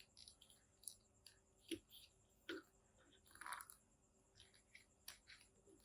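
Faint, scattered small clicks and a brief rustle of plastic action-figure parts being handled, as a bow is fitted into the figure's hand.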